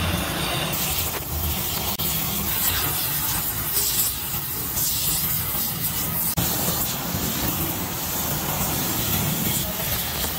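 Hose-fed gas torch flame hissing steadily, with a low rumble, as it heats a cast tractor gearbox housing packed with charcoal. The sound briefly cuts out twice, about two and six seconds in.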